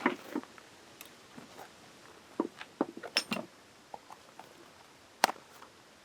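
A series of light, irregular knocks and clicks, the sharpest and loudest about five seconds in.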